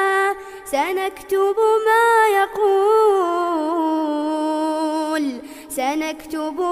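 A male reciter chanting the Quran in melodic tajweed style, drawing out long ornamented notes that bend and waver in pitch. There is a brief pause for breath a little past the middle.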